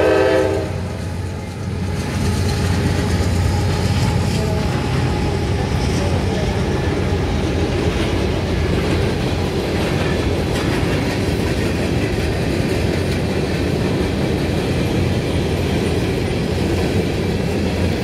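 A train horn note cuts off within the first second. It is followed by the steady rumble and rattle of empty coal hopper cars rolling past on the rails.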